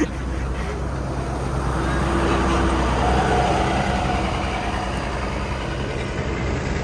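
Tour bus engine running close by, its sound swelling to a peak about three seconds in and then easing off.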